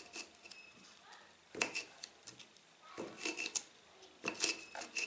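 A kitchen knife cutting red chilies inside a stone mortar, its blade clicking and tapping against the stone in three short bursts.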